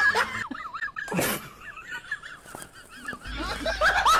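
Repeated high-pitched, wavering squeaky animal calls, many short ones in quick succession. A louder, harsher call comes about a second in, and a few rising calls come near the end.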